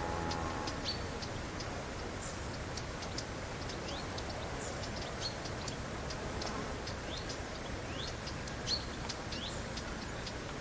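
Small birds chirping in short, high, scattered calls, many of them quick upward sweeps, over a steady low rumble of outdoor background noise.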